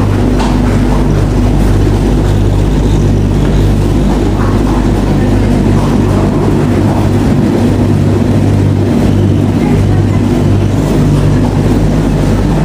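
Speed Queen commercial tumble dryer running: a steady low hum from the motor and blower as the drum turns a load of clothes.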